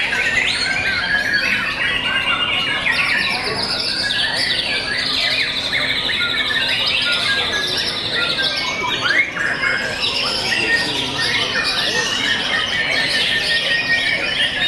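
White-rumped shamas singing in a dense, overlapping chorus of whistles and trills, with a long rapid trill about four to seven seconds in.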